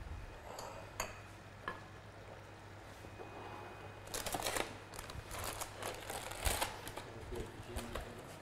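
Kitchen counter handling noises: two light clicks in the first two seconds, then about three seconds of crisp rustling and clatter as a paper food package is handled and opened.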